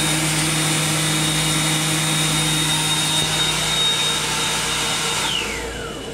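Hand dryer in a combined dryer, faucet and soap unit blowing: a steady high motor whine over a rush of air. About five seconds in, the whine falls away as the motor winds down, and it stops just before the end.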